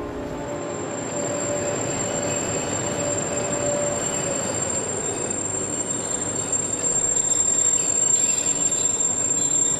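Passenger train at a station, its running noise slowly growing louder, with a thin steady high whine throughout and some wheel squeal near the end.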